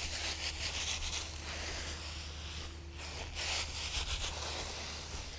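Boots kicking and scuffing loose yellow pine wood shavings across a concrete floor: dry rustling swishes in irregular bursts, loudest near the start and again a little past the middle.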